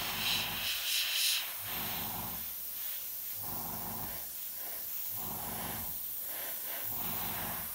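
An airbrush sprays with a steady hiss for about the first second and a half, then stops. After that a low rhythmic sound repeats about every second and a half.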